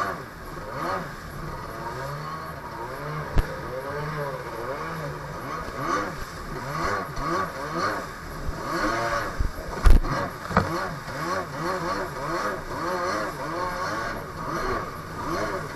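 Two-stroke jet ski engine revving up and down over choppy water, over a steady rush of water and spray. Two sharp knocks, one about three seconds in and a louder one near ten seconds, as the hull slaps the waves.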